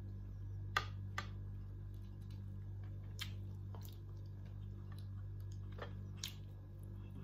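Mouth sounds of someone eating: several sharp clicks and smacks while chewing, some in quick pairs, over a steady low hum.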